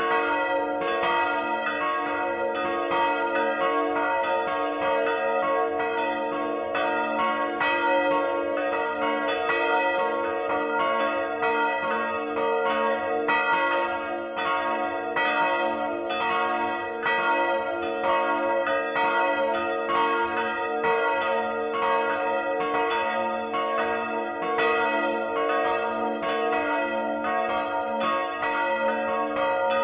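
Swinging bronze church bells ringing together at close range in the belfry, strikes overlapping several times a second in a continuous peal. The peal is of three bells: two cast by Rincker in 1952, one with strike note a', and one cast by Johann Peter Bach in 1759 with strike note C-sharp (cis'').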